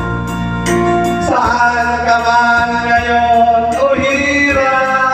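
Karaoke song: a backing track with a steady beat, and a man singing a Tagalog ballad into a microphone, holding long notes that slide up between pitches.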